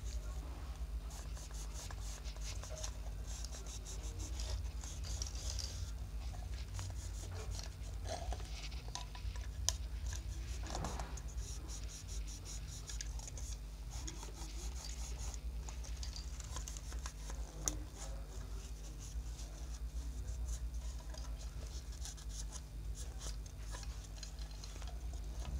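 Tissue rubbing and scraping over a phone's screen frame while it is handled, with small clicks and two sharper knocks. A steady low hum runs underneath.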